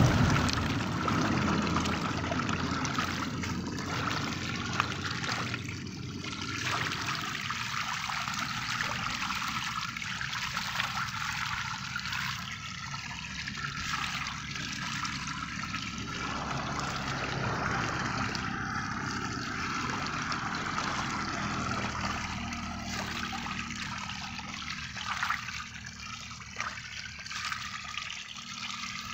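A dense school of sarpunti barbs thrashing at the water surface while feeding, making a steady churning splash and slosh of water. It is loudest at the start and eases off a little later on.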